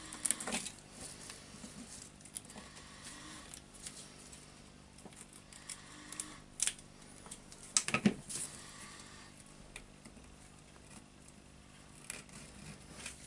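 Scattered small metallic clicks and scrapes from hands working a spring ring (retaining circlip) loose on a demolition hammer's front end, with a sharper knock about eight seconds in.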